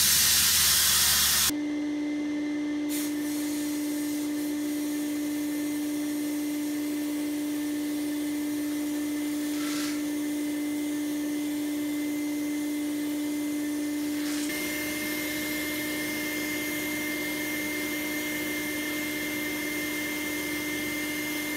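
Sandblasting in an abrasive blast cabinet with a Sears Craftsman shop vacuum running: a loud rush of air for about the first second and a half, then a steady hiss over a constant motor hum.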